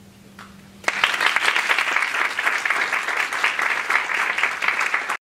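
Audience applauding, a dense patter of many hands clapping that starts about a second in and cuts off suddenly near the end.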